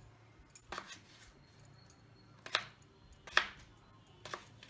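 Kitchen knife cutting a potato into chunks on a wooden chopping board: four separate sharp knocks of the blade striking the board, the third the loudest.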